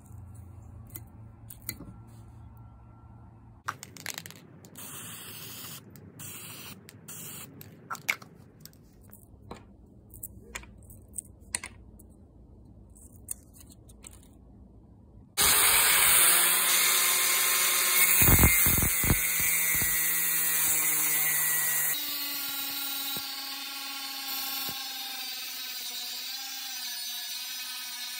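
Faint scattered taps and clicks, then, about halfway through, an angle grinder with a cut-off disc starts suddenly and runs loud with a steady high whine. From a few seconds later the disc is cutting the knife profile out of a Damascus steel billet, its whine wavering under load.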